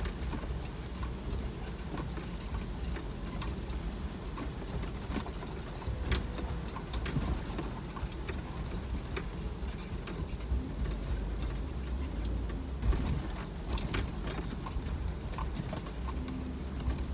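Inside a car driving in the rain: a steady low engine and road rumble, with scattered raindrops tapping on the windshield and roof.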